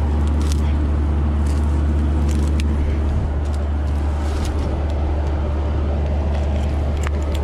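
Excavator's diesel engine running steadily as a low drone while the bucket digs into the dirt pile, with a few scattered light clicks.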